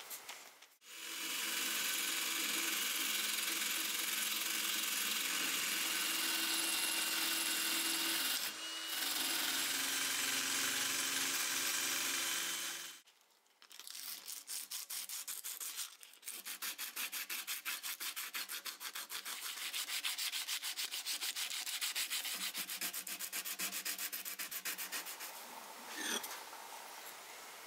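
Cordless drill spinning a wire cup brush against a rusty steel dagger blade, steady with a harsh hiss for about the first half. After a short pause, sandpaper is rubbed back and forth over the blade in rapid, even strokes. A single short knock comes near the end.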